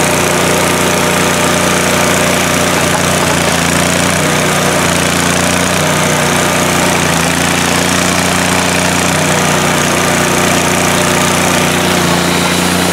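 Miller Trailblazer 302 Air Pak engine-driven welder running steadily, with an even hiss over the engine note.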